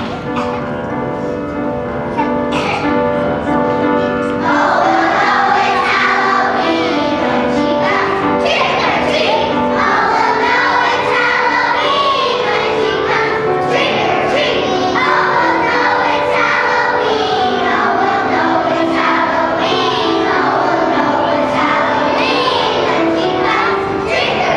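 A children's choir of first graders singing together over an instrumental accompaniment. The accompaniment plays alone at first, and the children's voices come in about four seconds in.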